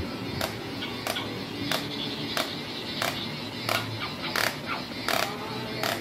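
Battery-operated fluffy walking toy running, its mechanism clicking evenly about three times every two seconds, over faint tinny music.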